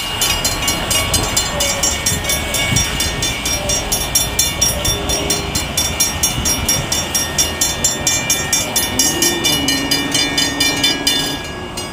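Railroad grade-crossing warning bells ringing in a fast, even rhythm, about three strokes a second, while the gates lift. The ringing cuts off suddenly near the end, as the gates clear.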